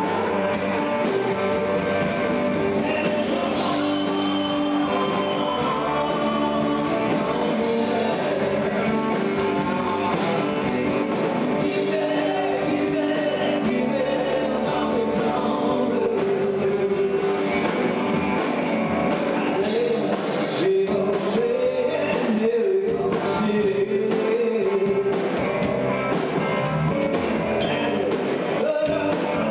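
A band playing upbeat rock-and-roll style music with a lead singer and guitar.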